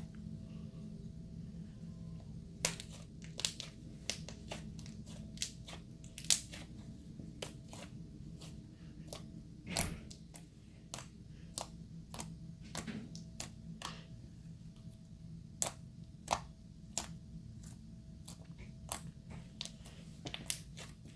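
Strawberry confetti slime being squished and stretched by hand, giving irregular sharp pops and crackles over a steady low hum.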